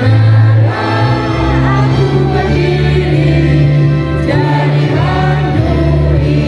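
Music with a group of voices singing in long held notes over a strong, steady bass.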